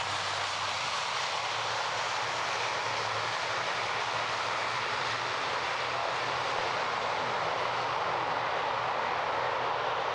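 Airbus A380's four Rolls-Royce Trent 900 jet engines at taxi power, a steady jet roar with a faint low hum underneath.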